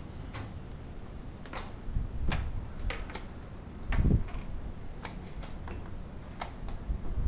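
Irregular sharp clicks and taps of chess pieces set down on a wooden board and a chess clock being pressed during a blitz game, with a heavier dull thump about four seconds in.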